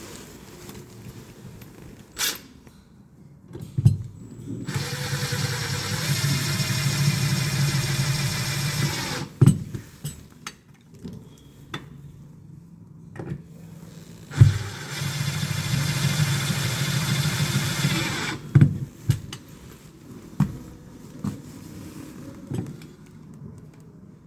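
Electric drill running in two bursts of about four to five seconds each, a steady motor hum under a dense gritty hiss, with sharp knocks at the start and end of each run and scattered knocks between. This is typical of holes being drilled to mount a fire alarm control panel on the wall.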